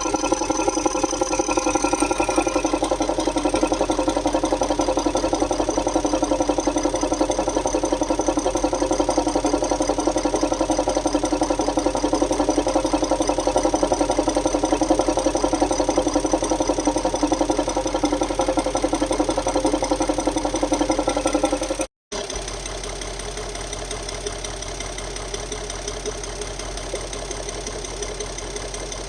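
Audi 4.0 V8 TDI diesel engine idling with a loud, rapid, rhythmic metallic knock. The uploader suspects a dry hydraulic lifter, a timing chain or a leaking or faulty injector on cylinder 8. About two-thirds of the way through, the sound cuts out for a moment and then resumes a little quieter.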